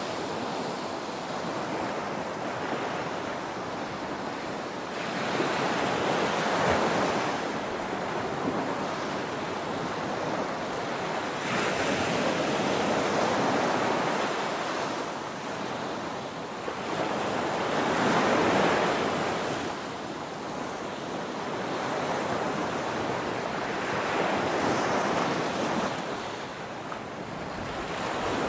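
Small waves breaking and washing up a sandy beach, the surf swelling and easing every five or six seconds.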